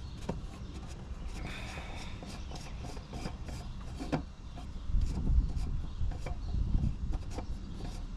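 Hands working an oil filter canister cap into its housing: rubbing and scraping with scattered light clicks. Heavier low bumps come from about five to seven seconds in.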